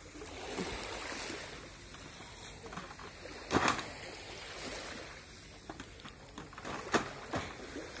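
Small waves lapping gently at a pebble shore, with a few sharp knocks, the loudest about halfway through and two more near the end.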